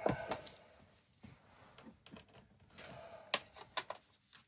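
Faint handling noise on a workbench: a few light clicks and knocks, a sharper one at the start and a small cluster near the end.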